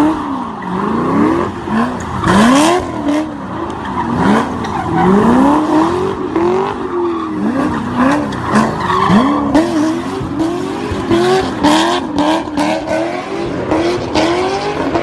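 A Corvette's V8 revving up and down over and over, its pitch rising and falling about once a second, as the car drifts with tyres squealing and skidding.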